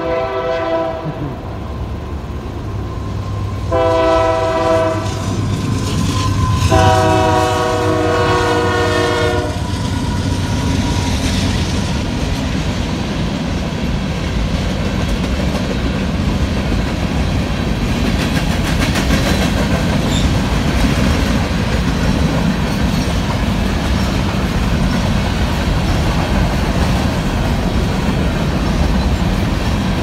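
Union Pacific GE AC44CW locomotive horn sounding for a grade crossing: a blast ending about a second in, a short blast near four seconds, then a longer one ending about nine seconds in. After the horn, the diesel locomotives rumble past and a long string of covered grain hopper cars rolls through steadily, wheels clacking over the rail joints.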